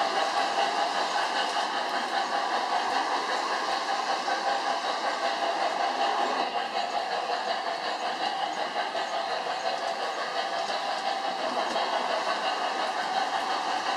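Model train with a steam locomotive and passenger cars running around an overhead loop of track: a steady rolling noise of wheels on the rails.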